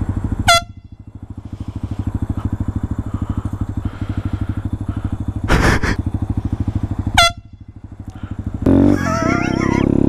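Motorcycle engine running steadily while a handlebar-mounted canned air horn gives two short blasts, one about half a second in and one about seven seconds in, each dropping in pitch as it cuts off. A brief loud rush comes between them, and near the end the engine revs up with rising pitch.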